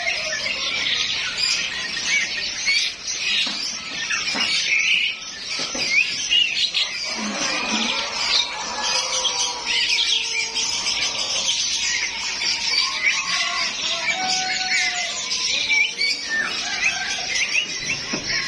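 Many caged birds chirping and squawking without pause, budgerigars among them, with a few longer whistled notes in the middle.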